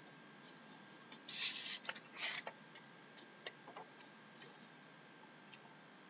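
Stylus writing on a tablet screen: a few brief scratchy strokes and scattered light taps as a number is handwritten onto a slide.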